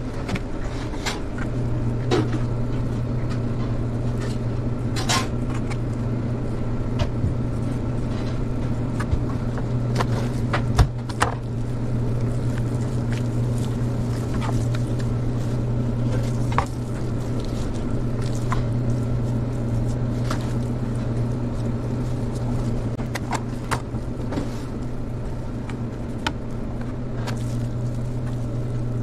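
Steady low hum of kitchen machinery, with scattered sharp clicks and taps of a knife and gloved hands working raw beef tenderloin on a plastic cutting board.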